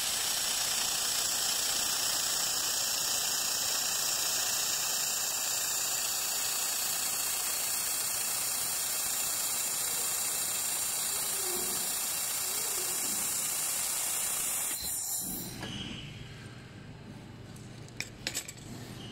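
3000 W handheld laser welder welding 6 mm stainless steel plate: a steady, high hiss of the weld and its gas flow that stops about 15 seconds in, leaving a low machine hum and a few clicks near the end.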